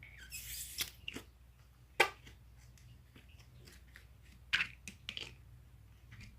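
Slime being put away in its plastic jar: scattered sharp clicks and knocks of the container and lid being handled, the loudest about two seconds in, with a brief rustle near the start.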